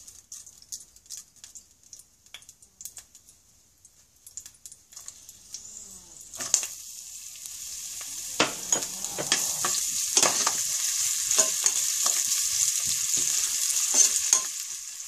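Chopped onion and curry leaves hitting hot oil in a non-stick pan: after a few light ticks, a sudden sizzle starts about six seconds in and grows steadily louder as the onion fries. A metal spoon clicks and scrapes against the pan as it is stirred.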